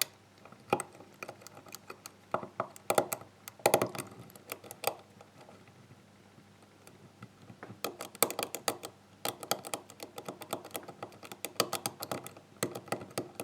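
Small metallic clicks and ticks of a lock pick and tension wrench working the pins of a GeGe euro-profile pin-tumbler cylinder, with serrated drivers catching as the pins are probed one by one. The clicks come irregularly in clusters, with a quieter pause about halfway through.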